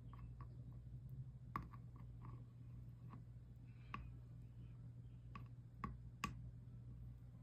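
Irregular light clicks and taps, about eight over a few seconds, from small hard objects being handled, over a steady low hum.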